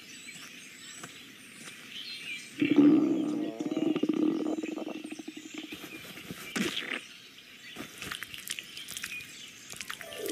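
Cartoon night-forest ambience of faint animal and insect calls, with a low wavering growl about two and a half seconds in that fades over a couple of seconds.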